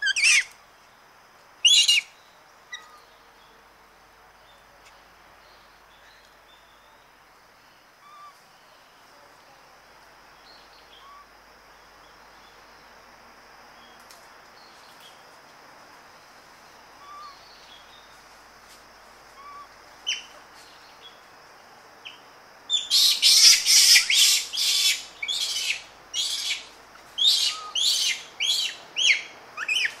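Japanese macaques screaming close up: two short high-pitched screams falling in pitch at the start, then a lull with faint bird chirps in the background. From about three-quarters of the way through comes a rapid, loud run of screams and aggressive calls, many of them falling in pitch.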